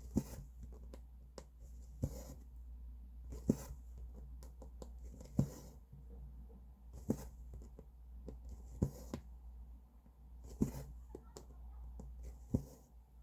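Cross-stitching: a needle tapping through fabric and the thread swishing as it is drawn through, about once every two seconds.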